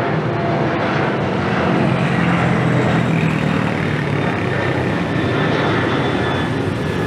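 Jet airliner engines running at high power, a loud steady rushing noise that swells slightly a few seconds in.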